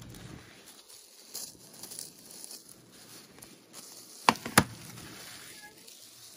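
Plastic shrink-wrap crinkling as it is peeled off a DVD box set, with two sharp plastic clicks about four seconds in, a third of a second apart.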